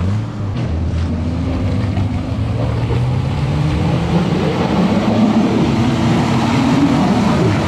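Toyota Land Cruiser's 4.5-litre engine pulling under load, its pitch rising steadily for several seconds and dropping back a little near the end, over a broad rushing noise.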